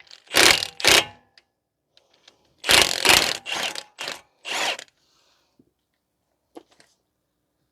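Impact wrench fired in short bursts, spinning a lug nut down against a wheel stud installer tool to draw a new wheel stud through the hub until it seats flush. Two bursts in the first second, then four more in quick succession about three seconds in.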